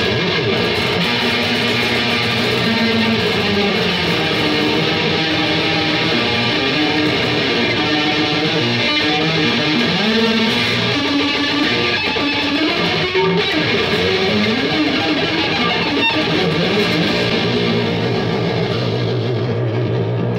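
Electric cigar box guitar played without a break, with notes that bend and slide in pitch.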